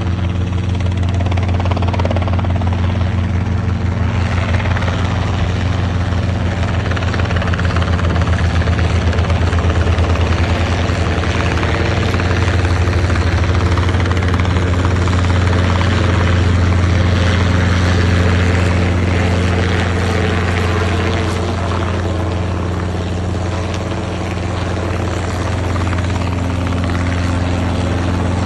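Robinson R22 Beta II helicopter flying in and settling into a low hover close by: the two-bladed main rotor beats in a fast, even pulse over the steady, loud run of its four-cylinder piston engine.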